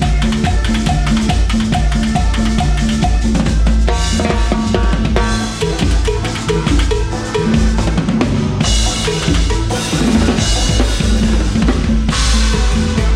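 Live cumbia band playing, heard from a drum kit mic'd close so the drums are loudest: steady bass drum, snare and rimshot pattern under the band, with the groove changing about four seconds in and a loud cymbal crash a little past halfway and another near the end.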